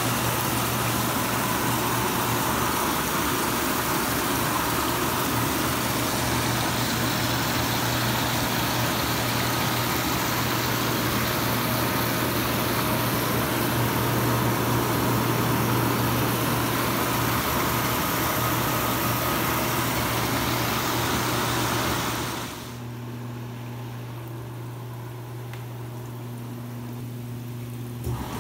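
Artesian Spas South Seas 748B hot tub with its jet pumps running: water churning and bubbling over a steady pump motor hum. About three quarters of the way through, the rushing water gets much quieter while the hum stays.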